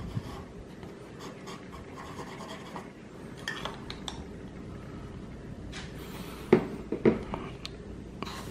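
Fountain pen with a medium nib writing on uncoated notebook paper: faint scratching of the nib across the page. A couple of soft knocks follow about six and seven seconds in as the pen and notebook are handled.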